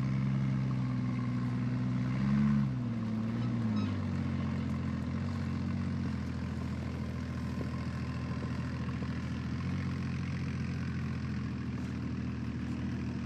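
Jeep engine running steadily at low road speed. About two seconds in, its pitch briefly rises and it gets louder, then the pitch drops and settles lower and steady for the rest of the time.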